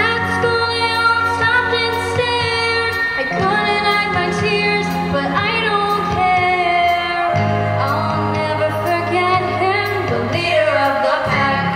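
A girl singing into a handheld microphone, amplified, over backing music; the low backing chords fall away for a few seconds partway through, leaving mostly the voice.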